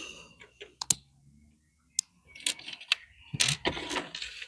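Lego plastic bricks clicking as pieces are handled and pressed firmly together: a few separate sharp clicks, then a busier clatter about three and a half seconds in.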